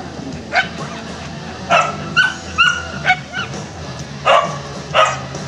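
A dog barking in about seven short, sharp barks, irregularly spaced, over a steady low hum.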